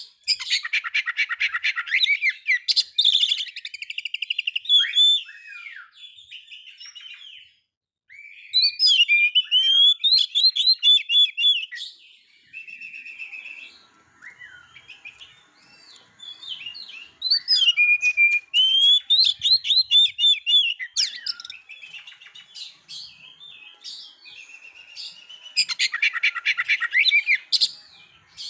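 Oriental magpie-robin (kacer) singing: four loud bursts of fast repeated trilled notes, about eight seconds apart, with softer whistles and chirps between them.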